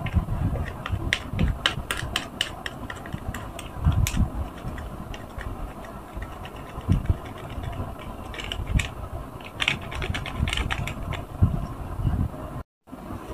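Bar of Fab laundry soap being grated on a small handheld grater over a soapy sponge: scratchy, crackly rasping in two runs, with dull handling thumps underneath. The sound cuts out briefly near the end.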